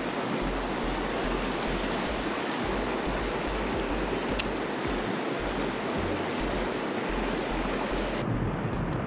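River current rushing and splashing around an angler's wading legs, a steady hiss of moving water, with wind buffeting the microphone in low rumbles. The sound turns duller near the end.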